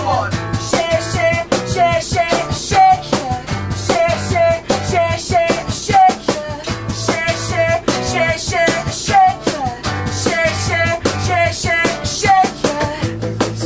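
Acoustic guitar strummed in a steady rhythm with a man singing a pop-rock melody over it.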